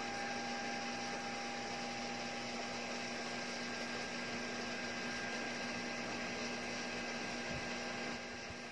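Steady hum of the cooling fan inside a Philips Lumea Precision Plus IPL hair-removal device, which is switched on, with a few fixed tones over an even whir; it eases slightly near the end.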